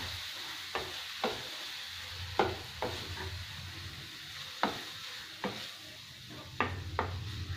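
Wooden spatula stirring a thick masala in a kadai, knocking and scraping against the pan at irregular intervals, the loudest knock about two and a half seconds in, over a soft steady frying sizzle.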